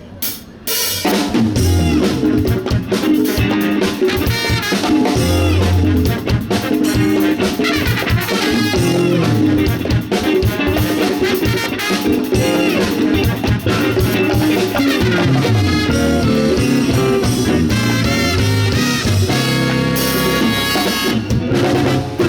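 Wind band with brass and drum kit playing an upbeat piece live. A couple of sharp hits open it, and the full band comes in about a second in.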